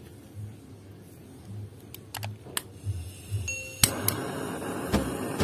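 A few light clicks, then a sharp click near the end followed by the steady rushing hiss of a handheld butane gas torch flame burning.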